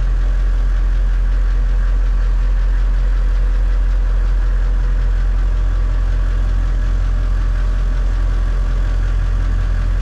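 HMMWV (Humvee) V8 diesel engine running steadily at low speed, a constant deep drone heard from inside the cab as the truck rolls slowly along.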